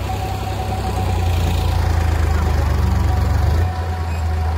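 Tractor diesel engine running under load, a steady low rumble as it pulls a loaded trailer up a loose dirt slope; the engine note lightens about three and a half seconds in.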